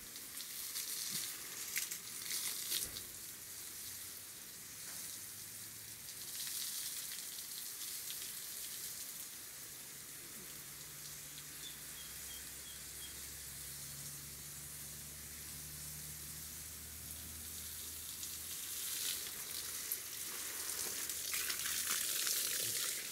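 Water jet from a garden hose hissing and spattering onto leaves and ground, getting louder near the end as the outlet comes close.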